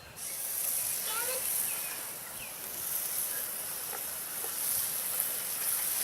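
Food frying in a pan over a campfire: a steady sizzle that cuts in suddenly, with a few small pops.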